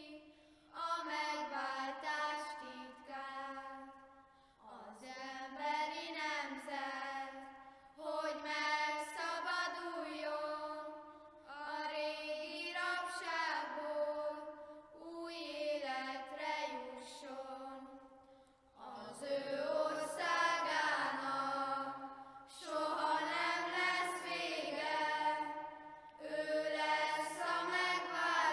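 A group of children singing a Christmas song unaccompanied, in phrases of a few seconds with short breaks between them. Lower boys' voices join about two-thirds of the way through.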